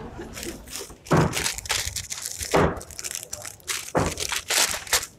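A run of irregular sharp knocks and crunching thuds, several strong ones spaced about a second or so apart with smaller ones between them.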